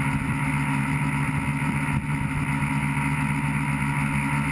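Tricopter's three electric motors and propellers buzzing steadily in flight, picked up close by the camera on board, a constant drone with a high whine on top.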